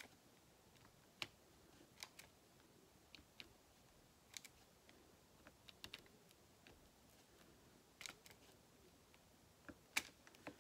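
Faint, irregular small clicks and taps of a diamond-painting drill pen picking round drills out of a plastic tray and pressing them onto the adhesive canvas, about a dozen in all.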